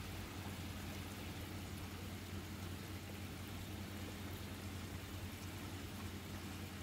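Steady hiss of heavy rain during a thunderstorm, with a low steady hum underneath.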